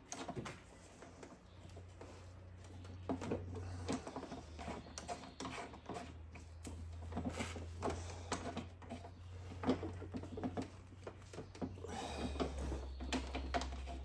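Scattered clicks and small metal knocks from a hand rivet-nut (nutsert) tool being worked and handled while crimping an insert into a steel running board, over a steady low hum.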